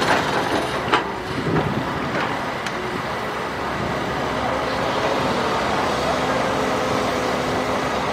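Matador Shantui ME210LC-1 crawler excavator's engine running steadily under load as the bucket digs into a trench, with several sharp knocks in the first three seconds.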